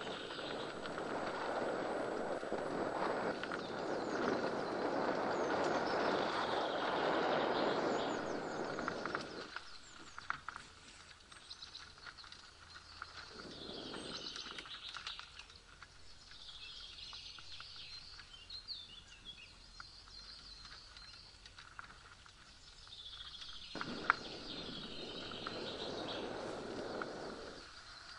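Mountain bike tyres rolling over a dirt forest trail, a rushing noise that is loud for the first nine seconds or so, returns briefly a little after halfway and again near the end with a sharp knock. Birds sing in the woods throughout.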